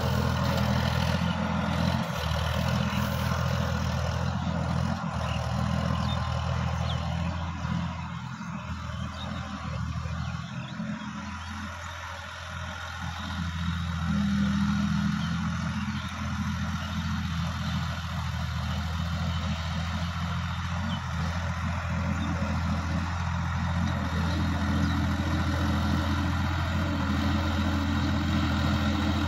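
Sonalika DI-50 RX tractor's diesel engine running steadily under load as it pulls a rotary tiller through the soil. The engine grows fainter near the middle as the tractor works farther off, then louder again about halfway through as it comes back closer.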